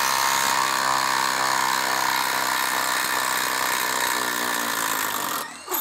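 Ridgid Octane cordless impact driver hammering steadily under heavy load as it drives a 5/8-inch by 8-inch galvanized lag screw into a log, then stopping abruptly near the end as the lag seats.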